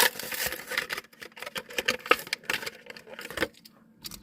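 Plastic blister packaging and cardboard backing of a die-cast toy car being pulled apart by hand: a dense run of crackling and clicking that thins out to a few clicks near the end.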